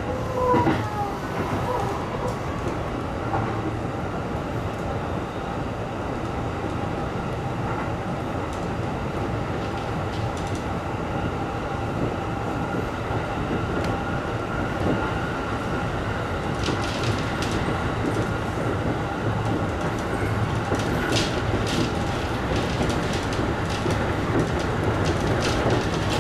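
E531 series electric train running at speed, heard from inside the front car: a steady rumble of wheels on rail with a faint steady whine, and a few sharp clicks in the second half.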